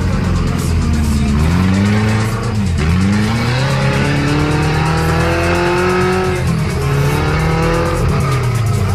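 Side-by-side UTV engines revving hard on a muddy hill climb. The revs drop sharply and climb again several times, with one longer steady rise in the middle.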